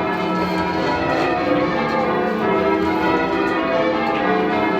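Ring of ten church bells, tenor 18½ cwt in E, rung in call changes: a continuous, even run of overlapping bell strikes.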